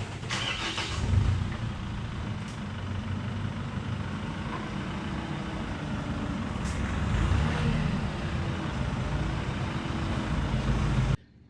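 A motor vehicle driving: a steady engine hum under road and wind noise, cutting off suddenly near the end.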